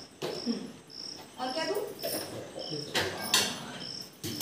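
A cricket chirping steadily, about two short high chirps a second, with a few sharp knocks of steel pots and utensils; the loudest knock comes about three seconds in.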